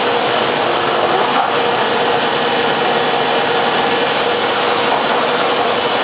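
Deckel Maho DMC 70 V vertical machining centre running with a steady, even noise and a faint hum.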